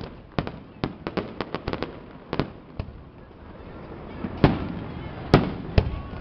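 Aerial fireworks exploding: a quick run of sharp bangs and crackles, a short lull about three seconds in, then a few louder bangs near the end.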